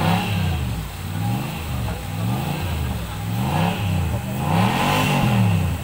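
Off-road 4x4 truck engine revving up and down over and over, the pitch rising and falling several times in a row as the throttle is worked.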